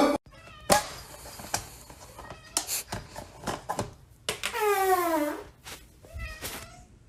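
Cat meowing: one long meow about four and a half seconds in, lasting about a second and falling in pitch, then a shorter call. Before it come scattered light clicks and knocks.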